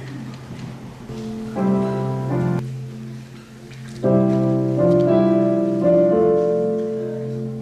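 Instrumental scene-change music led by piano, sustained chords with louder chords coming in about one and a half and four seconds in, over a steady low hum.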